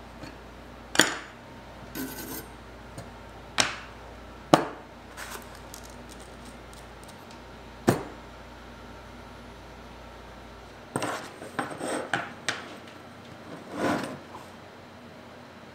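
Metal grill parts and tools (steel skewers, a grill tool, a small metal grill) being set down one at a time on a wooden workbench: about five separate sharp clacks in the first half, then a quick run of clinks and rattles near the end as the grill pieces are handled.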